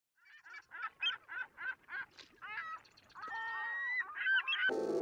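A hen clucking: a quick run of short clucks, then one long drawn-out call and a few more clucks. Music starts just before the end.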